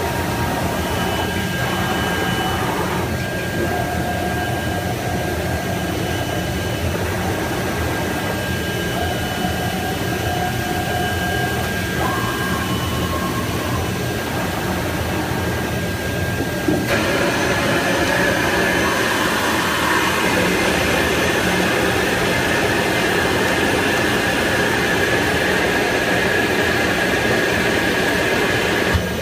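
IECHO BK3 digital cutting table running: the steady blower noise of its vacuum hold-down table with a low hum, and whines that step in pitch as the cutting head travels. About 17 seconds in the noise gets louder and hissier and stays so.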